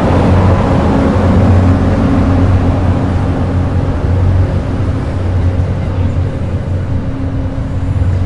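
Cassiopeia sleeper train's passenger cars rolling slowly past on the rails, with a steady low hum that gradually fades as the cars move off.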